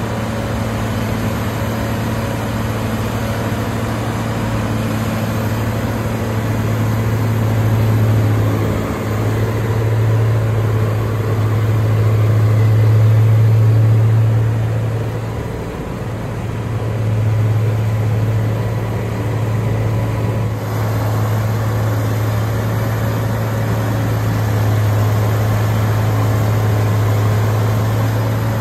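Tub grinder grinding round hay bales, its engine running under heavy load with a steady low drone. The drone eases briefly a few times as the load changes.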